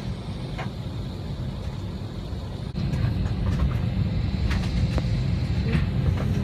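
Steady low drone in an Airbus A321 cabin with the jet parked at the gate and its engines not yet started, the steady sound of the cabin air system. It gets louder about three seconds in, and a few faint clicks follow.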